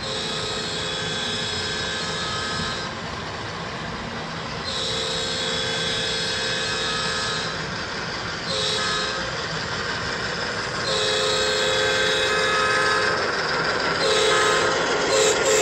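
Model diesel locomotive's onboard sound system blowing its horn in a long, long, short, long pattern (the grade-crossing signal), then starting another blast near the end. A steady diesel-engine rumble runs underneath and grows louder as the train comes closer.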